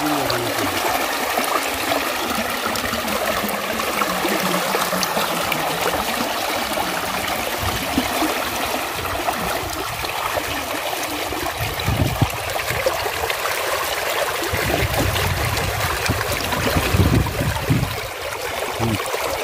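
Shallow muddy water splashing and rushing steadily around hands, legs and a bamboo pole as fish are gathered from a bamboo-and-net trap. A few dull low thuds come in the second half.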